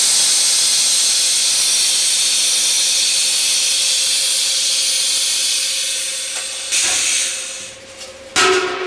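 Compressed air hissing loudly and steadily from an LPG cylinder circumferential welding machine's pneumatics as the welded cylinder is released, fading out, then two shorter hisses near the end.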